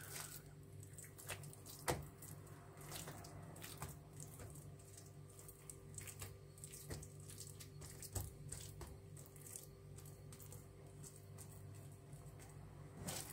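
Faint soft squishing and patting of oily, poppy-seed-coated dough being lifted, laid in layers and pressed by hand on a countertop, with a slightly louder tap about two seconds in, over a faint steady hum.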